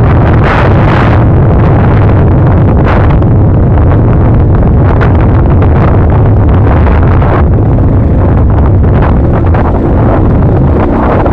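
Loud, overloaded rumble of wind buffeting a moving camera's microphone, with irregular jolts from riding over a rocky dirt trail.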